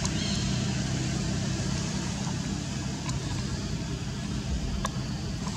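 A motor vehicle passing on the road: a steady engine and tyre rumble that slowly fades as it moves away.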